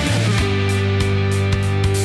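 Background rock music with electric guitar, held chords over a steady low bass, and drum hits.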